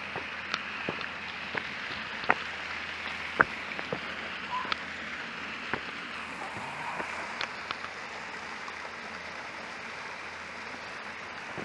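Steady rush of a shallow mountain stream spilling over a small weir, with footsteps on a stone path ticking over it for most of the first eight seconds.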